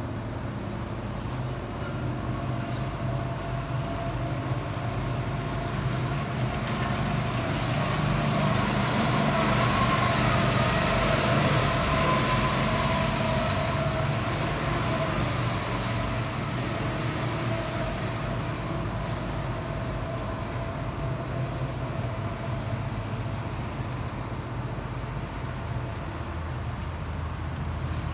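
Go-kart engines running on the track, a steady drone that swells as karts pass close by, loudest a little before the middle, then fades back.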